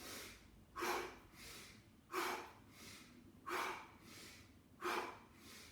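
A man breathing heavily and forcefully in a steady rhythm, a strong breath about every 1.3 seconds with a softer one between, four strong ones in all: part of a round of nine heavy breaths in a breathing exercise.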